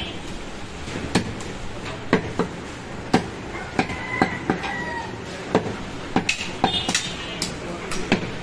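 Goat meat being chopped with a butcher's blade: a run of sharp, irregular chops, about one or two a second.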